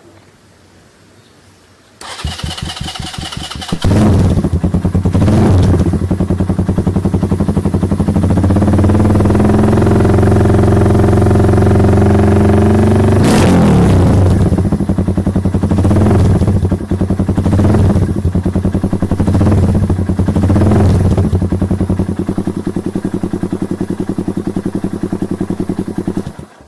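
Keeway RKS 150 motorcycle engine, fitted with an aftermarket bullet pipe exhaust, cranked for about two seconds before catching, then running loud and revved sharply several times between stretches of idle. It cuts off suddenly near the end.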